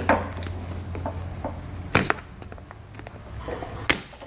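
Hand snips cutting through a plastic air dam, each closing of the blades a sharp snap: one at the start, two close together about two seconds in, and one near the end.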